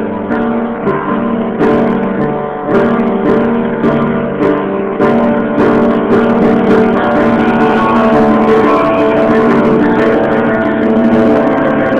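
Instrumental music with no singing: strummed guitar chords over sustained keyboard.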